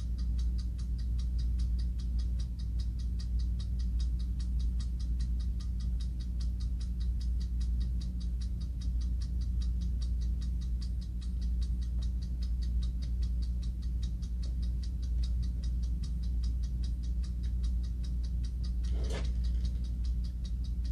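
German-made hand-wound mechanical clock in a porcelain case, ticking fast and evenly as its movement runs. A brief extra sound cuts in once near the end.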